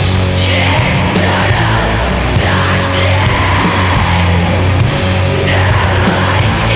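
Slow doom metal: heavily distorted guitars and bass hold long, low chords, changing every second or two, with crash cymbals.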